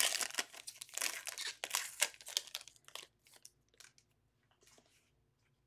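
Foil wrapper of a basketball trading-card pack being torn open and peeled off the cards, a dense crackle for about three seconds, then a few soft ticks of cards being handled.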